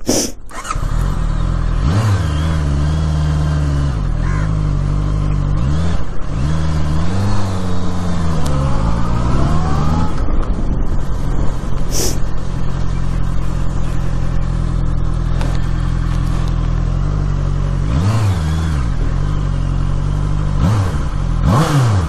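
Honda CBR650R's inline-four engine catching after a short burst right at the start, then running steadily as the bike rides off at low speed, its revs rising and falling several times.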